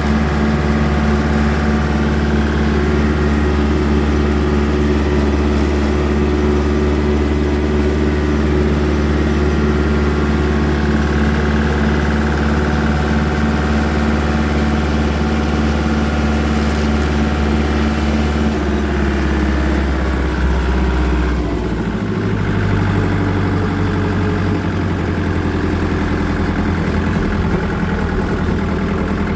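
Small orange compact tractor's engine running steadily as the tractor drives along a road, heard from the driver's seat; about two-thirds of the way through the engine note shifts.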